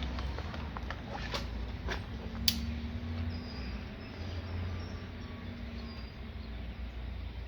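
A crossbow being handled ahead of a shot: a few light clicks and knocks, the sharpest about two and a half seconds in, over a low steady rumble. Faint high chirps come in the middle.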